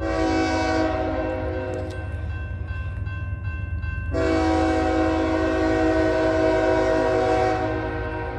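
Diesel locomotive's multi-note air horn sounding two long blasts, about two seconds and then about four seconds, with a pause of about two seconds between. This is the opening of the grade-crossing horn signal as the train approaches the crossing.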